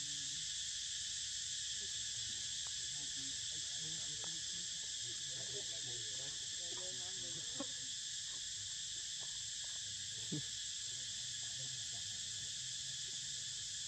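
Steady, unbroken shrill chorus of insects, several high-pitched tones held without pause.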